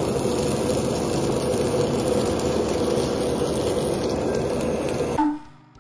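Handheld kitchen blowtorch burning with a steady hiss while it sears the skin of sliced fish. The hiss cuts off abruptly about five seconds in, and a few notes of music begin just before the end.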